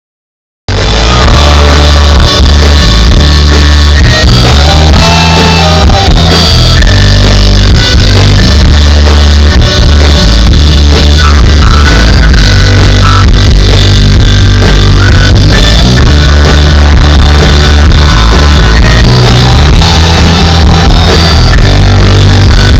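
Rock band playing loudly, with electric guitar, bass and drums, kicking in abruptly about half a second in.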